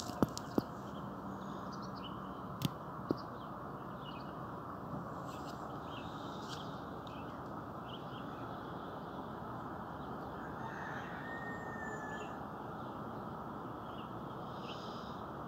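Steady outdoor early-morning ambience: an even rush of background noise with scattered bird calls over it, and a few sharp clicks in the first three seconds.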